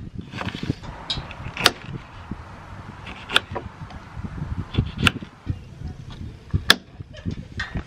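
Kitchen knife slicing an onion on a wooden cutting board, the blade knocking sharply on the board four times, about every second and a half to two seconds, with softer cutting sounds in between.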